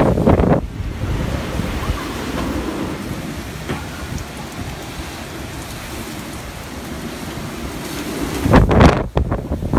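Storm-force typhoon wind buffeting the microphone, a heavy gust at the start and another near the end with a steadier rush between, likely with rain.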